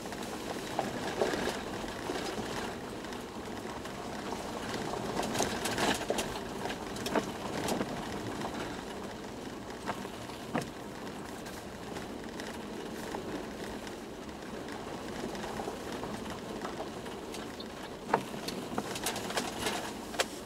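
Toyota Land Cruiser 120 on the move, heard from inside the cabin: steady road and engine noise with sharp knocks and rattles scattered through it, the sharpest one near the end.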